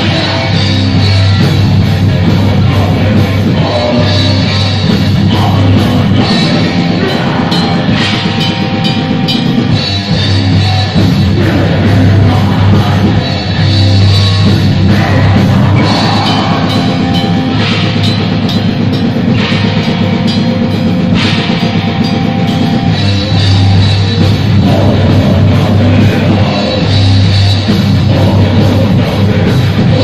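Black metal band playing live and loud: distorted electric guitar and a pounding drum kit, with vocals into a microphone over the top.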